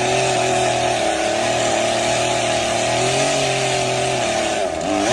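An engine running steadily at a nearly constant pitch, wavering slightly, with a brief dip and rise in pitch near the end.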